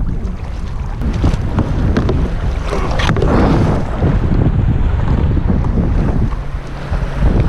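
Wind buffeting the microphone over water splashing around a kayak as it is paddled in through small breaking surf, with a louder wash of water about three seconds in.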